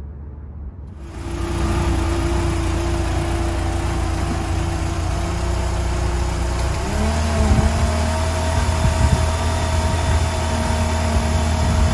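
1999 Mercedes-Benz C230 Kompressor's supercharged 2.3-litre four-cylinder engine running at idle, freshly filled with new oil and warming up. Its note shifts about seven seconds in.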